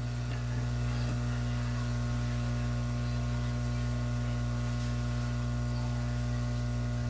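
Steady electrical mains hum: a low, even hum with a stack of higher buzzing tones over a faint hiss, unchanging throughout.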